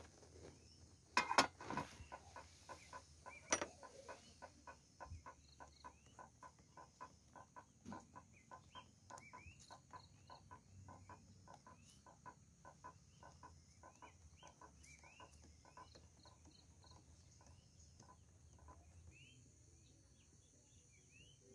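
Spoon stirring a drink in a paper cup: a steady light tapping about three times a second, which stops near the end, after a few sharper clinks near the start. Birds chirp and insects buzz faintly behind.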